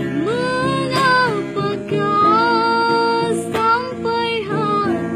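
A young woman singing a slow melody in short phrases of held notes that bend up and down, over a steady instrumental accompaniment.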